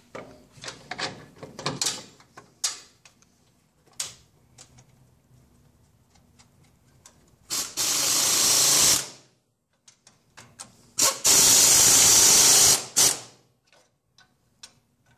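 Light clicks and knocks of metal brake parts being handled, then a cordless impact wrench runs twice, about a second and a half and then two seconds, running in the bolts that hold the parking-brake backing plate to the rear axle housing. The two tool runs are by far the loudest sounds.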